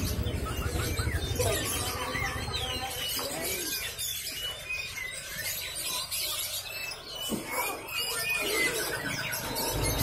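Many caged birds chirping over one another, a dense run of short high calls, with a low rumble in the first few seconds.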